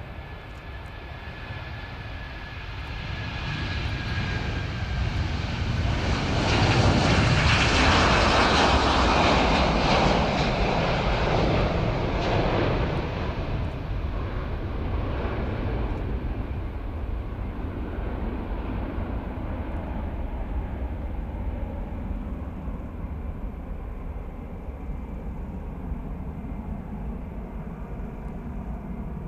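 Airbus A330-200 jet airliner's twin Rolls-Royce Trent 700 turbofans at takeoff thrust as it rolls down the runway and lifts off. The engine noise swells to its loudest about seven seconds in as the aircraft passes, the whine dropping in pitch, then settles into a rumble that slowly fades as it climbs away.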